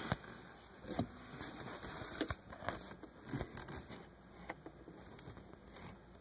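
Faint, irregular clicks, taps and rustling as parts are handled in the tight space behind a car's dashboard.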